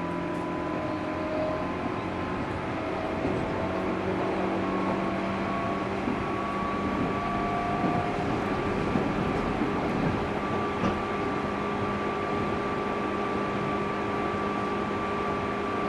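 JR 205 series electric train running, heard from inside a motor car with externally ventilated MT61 traction motors. The motor and gear tones rise slightly in pitch over the first few seconds and then hold steady over the rumble of wheels on rail, with a few faint clicks.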